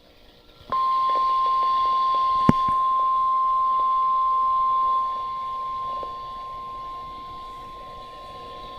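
NOAA Weather Radio 1050 Hz warning alarm tone played through a weather radio receiver: one steady, unbroken high beep that starts about a second in, with a single click a couple of seconds later. The tone drops in level in two steps about halfway through but keeps sounding.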